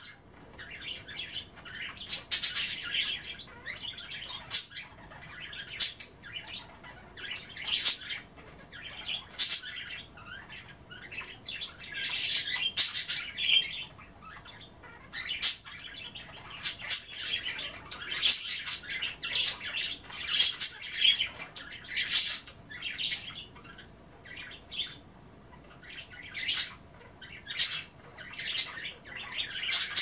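Pet budgerigars chattering: many short, sharp chirps and squawks following one another irregularly, with brief pauses between runs.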